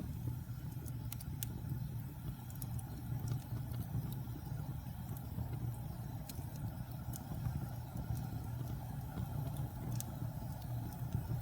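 Wood fire burning: a steady low rumble with sharp crackles and pops scattered irregularly throughout.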